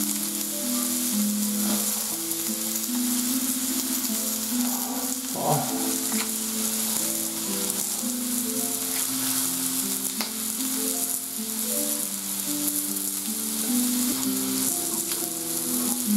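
Slices of wild boar meat sizzling on a tabletop grill plate, a steady hiss, with soft background music of slow held notes underneath.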